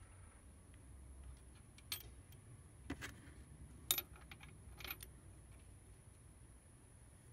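Small metal parts clinking: four light metallic clicks about a second apart, the loudest about four seconds in, as a steel grease cap and washer are fitted over the spindle pin of a VW Bus front beam.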